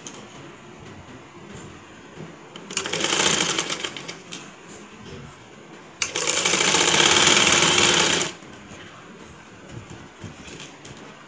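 Sewing machine stitching in two runs: a shorter one about three seconds in, then a louder, steadier two-second run that stops sharply, with quiet pauses between as the folded hem of net fabric is sewn.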